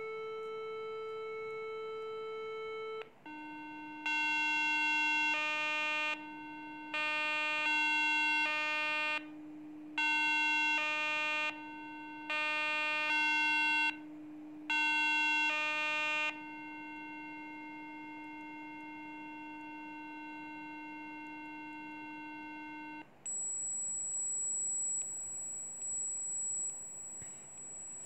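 Electronic test tones of a Rife frequency track: a steady buzzy tone that drops in pitch about 3 seconds in, with a higher set of tones switching on and off repeatedly over it for about a dozen seconds. About 23 seconds in it gives way to a single very high, thin whine.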